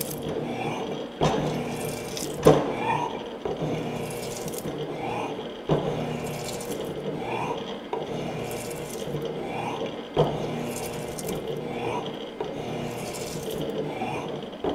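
Morey 12-inch vertical shaper running, its ram stroking up and down in a steady repeating rhythm as the tool cuts an internal keyway, over a constant machine hum. Several sharp metallic clinks stand out among the strokes.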